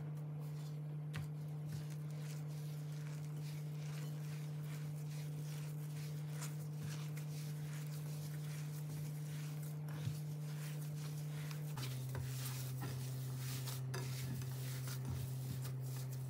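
Faint clinks and taps of kitchen utensils being handled, over a steady low hum that drops in pitch about twelve seconds in.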